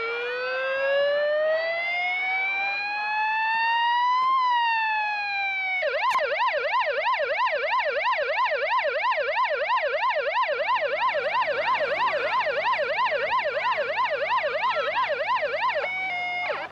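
Police electronic siren from a roof-mounted loudspeaker on a Land Rover. It wails in one slow rise of about four seconds, then switches to a fast yelp of about two to three sweeps a second, which cuts off near the end.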